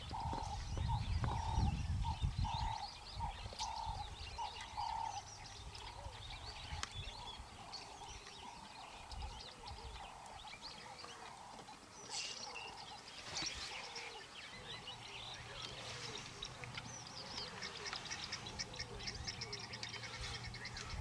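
Wild birds calling: a run of evenly repeated mid-pitched notes, about two a second, for the first few seconds, then a busy chorus of high chirps and trills with some lower falling notes. A low rumble sits under the opening seconds.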